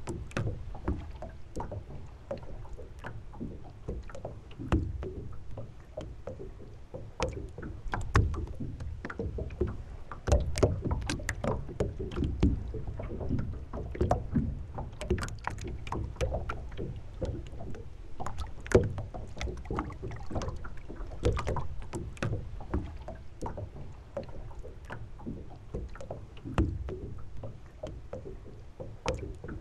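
Water lapping and slapping against the hull of a sailing boat on a mooring, with irregular sharp knocks and a low rumble underneath.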